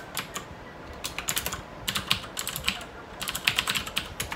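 Typing on a computer keyboard: several quick bursts of keystrokes with short pauses between them.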